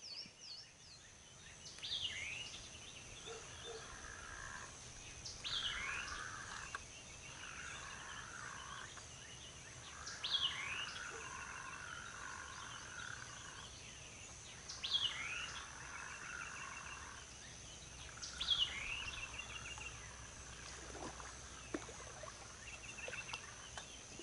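Birdsong at dawn: one song repeats about every four seconds, a quick downward-slurred whistle followed by lower trilling phrases. A faint steady high-pitched whine runs behind it.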